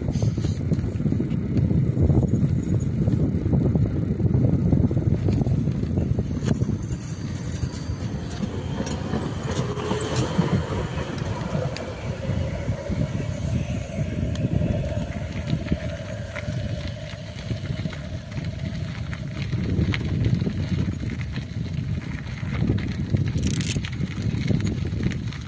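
Wind buffeting a phone's microphone while moving quickly along a path, a steady low rumble, with a run of clicks and rattles about a third of the way in. A faint whine rises and then holds steady through the middle.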